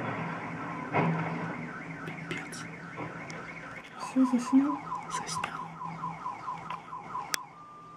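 Car alarm sounding: a rapid electronic warble that repeats about four times a second in the second half, ending with a sharp click and a steady tone.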